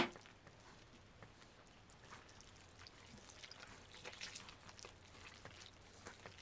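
A hand mixing flour and water into dough in an aluminium bowl: faint, soft, irregular sounds of the wet dough being worked, after a short sharp click at the very start.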